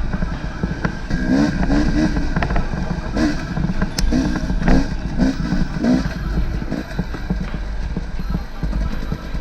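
Off-road motorcycle engine running with repeated short revs, its pitch rising and falling in quick blips over a steady low rumble, with a sharp click about four seconds in.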